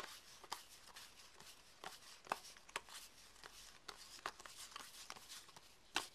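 Cardboard baseball trading cards flipped through by hand: an irregular run of faint, sharp flicks, about two or three a second, as each card is slid off the stack.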